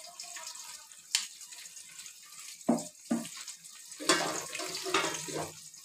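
Wet rice sloshing in water as it is stirred with a wooden spatula in an aluminium pot, with a sharp click about a second in and two short knocks near the middle.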